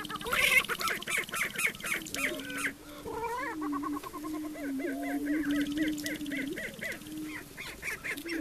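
Greater prairie chickens booming on a lek: a steady low hooting hum, with quick cackling and whooping calls over it that come in fast repeated runs.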